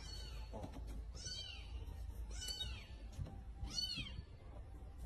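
Cat mewing: three high-pitched, arching mews about a second and a quarter apart.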